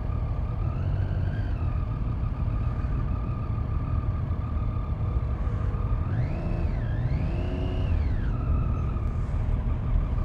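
Motorcycle engine and wind rush heard from the rider's own bike, likely a Triumph Street Triple, with a low rumble and a steady engine whine. About six seconds in the whine rises in pitch, dips briefly, then rises again before settling, as the bike accelerates.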